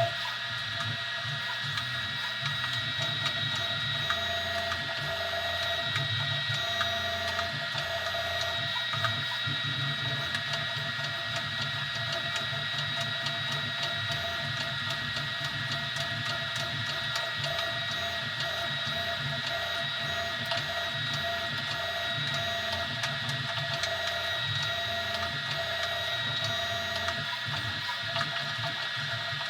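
An Easythreed X2 desktop 3D printer running a print: its stepper motors give a steady high whine over a low hum that shifts pitch every fraction of a second as the moves change.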